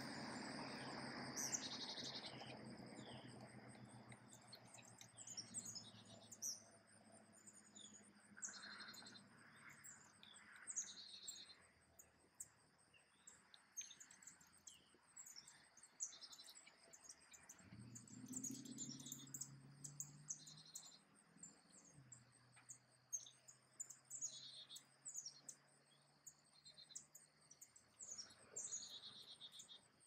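Faint chorus of small birds giving short high chirps, scattered all through, over a steady high insect trill. A faint low hum swells around the middle and fades again.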